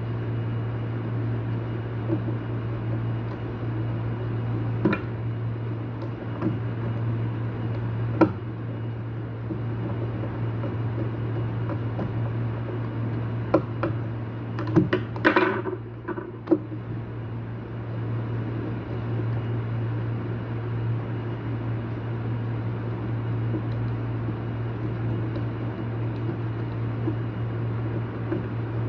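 Steady low mechanical hum, with scattered sharp clicks and knocks and a brief scraping rustle about halfway through.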